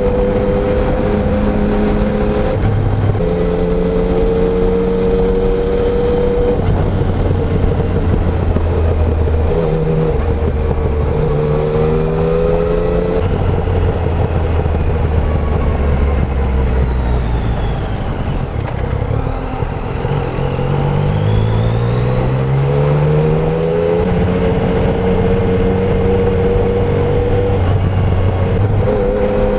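Yamaha Tracer 900 motorcycle's three-cylinder engine, stock exhaust, running under way over wind noise. It holds fairly steady revs with a few steps in pitch, eases off about two-thirds of the way through, then revs up again.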